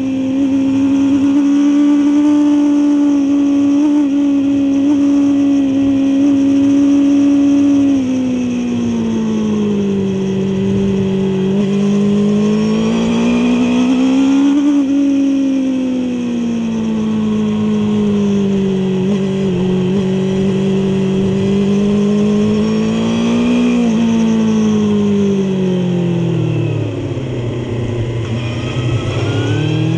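Suzuki GSX-R750 K5's inline-four engine at high revs on track. The note holds high for several seconds, falls and rises with the throttle through the corners, drops low near the end, then climbs sharply as the bike accelerates away, over a steady rush of wind.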